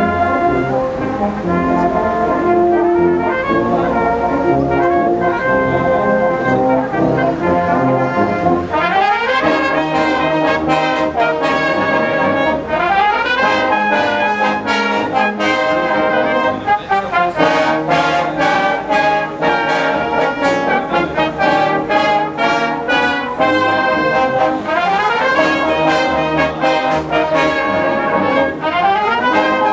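A brass band of cornets, horns, trombones and basses playing a piece under a conductor. It opens on held chords, then from about nine seconds in grows livelier, with several rising runs and quick repeated notes.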